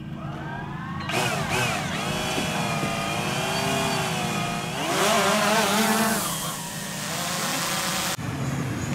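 Boat engine throttling up. Its pitch rises over the first second, then runs high and wavers up and down over a steady low drone, and drops away suddenly near the end.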